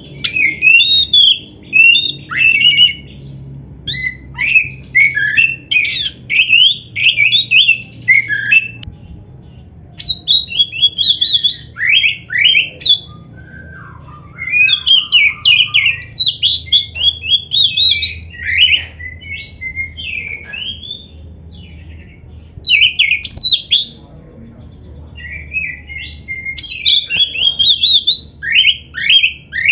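Oriental magpie-robin (black-breasted kacer) singing hard in a loud, rich, varied song full of mimicked phrases. The song comes in rapid runs of whistles and trills several seconds long, broken by short pauses, over a faint steady low hum.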